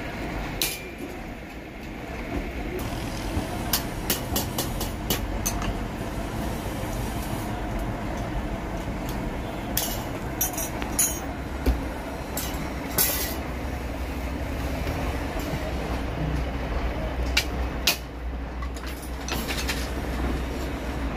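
Workshop noise: a steady low rumble with scattered sharp clicks and knocks, several in quick succession at times.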